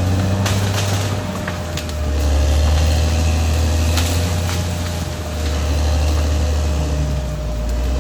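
Caterpillar D6R XL bulldozer's diesel engine running steadily with a deep hum, swelling and easing twice, with a few sharp clicks in the first half.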